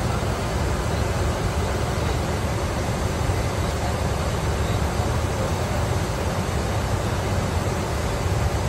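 Steady in-flight cockpit noise of a Gulfstream G550 business jet: an even rush of airflow and engine noise, heaviest in the low end, with no change in level.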